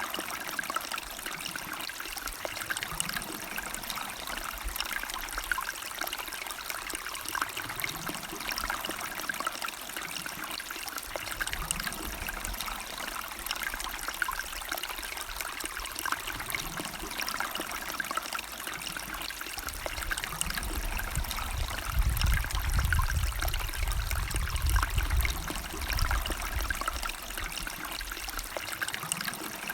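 River water flowing and trickling steadily. A low rumble swells for several seconds about two-thirds of the way through.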